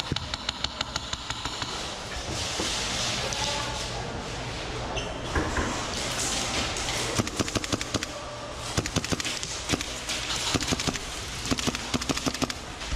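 Airsoft guns firing in rapid bursts of sharp clicking shots, several times over, with distant shouting voices.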